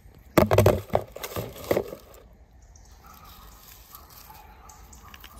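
Hand-handling noise from a small die-cast toy car and dry pine needles: a few sharp knocks and rustles in the first two seconds.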